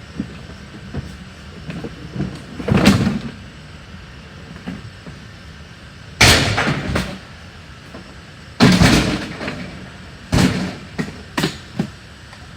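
Junk and flood-damaged debris thrown into a truck, landing in a series of loud crashes and bangs, about five or six, a few of them clattering on for nearly a second.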